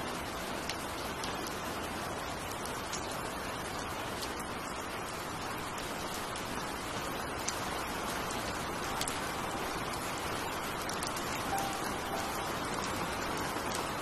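Heavy rain falling steadily: an even hiss with scattered sharper drip taps.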